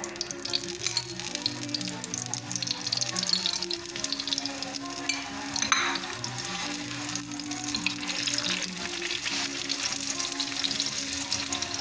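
Paratha sizzling on a hot tawa, a steady crackly hiss with a brief scrape about six seconds in. Background music plays underneath.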